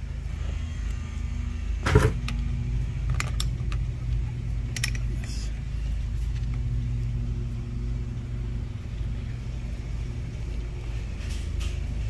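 Connecting rod and dial bore gauge handled on a metal workbench: one sharp knock about two seconds in, then a few lighter clicks, over a steady low hum.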